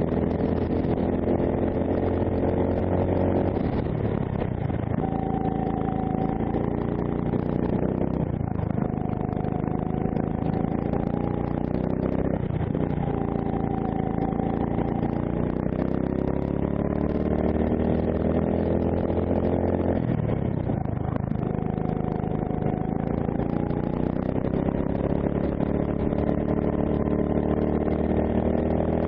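Onboard sound of a PCR kart's D&M 270cc four-stroke engine under way. The revs climb steadily along the straights and drop sharply as the kart slows for corners, about four times, then pick up again.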